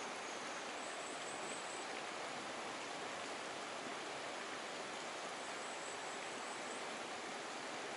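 Steady rushing noise like running water, even throughout, with two faint thin high whistles, one about a second in and one near six seconds.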